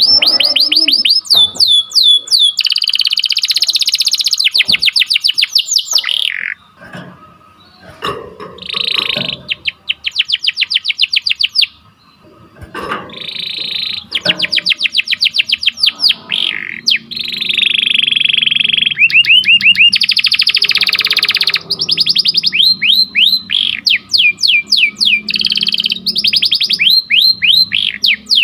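Domestic canary singing: fast runs of repeated falling chirps and sharp rolled trills, broken by two short pauses.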